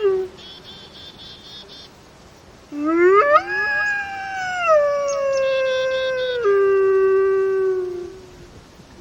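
Gray wolves howling. A long howl swoops up, holds high, then slides slowly down and levels off before fading about eight seconds in, with a second howl joining at its start. Short, high trilling sounds come in the pauses.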